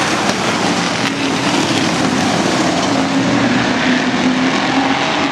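A pack of Outlaw Sportsman race cars going by on an oval short track, their engines running hard together in a loud, steady din.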